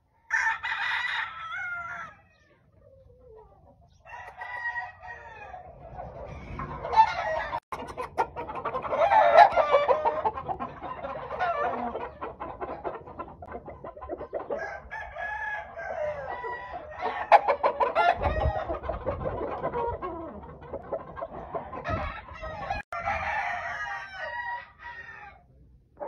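Several gamefowl roosters crowing and clucking, one call after another and at times overlapping, with a first short crow just after the start and long stretches of crowing through the middle and near the end.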